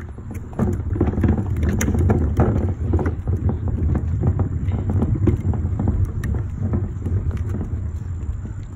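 Wheeled plastic trash can being pulled over pavement: a steady low rumble of its wheels with many small rattles and clicks. It starts about half a second in and eases off near the end.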